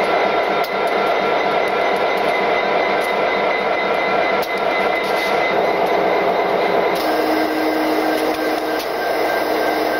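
Conrail EMD SD60M diesel-electric locomotives running at idle close by: a loud, steady mechanical drone with thin whining tones over it. A lower steady hum joins about seven seconds in.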